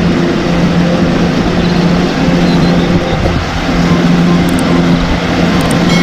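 Wheel loader's diesel engine running steadily as it pushes snow with a V-shaped plow: a low, steady drone over a rushing noise.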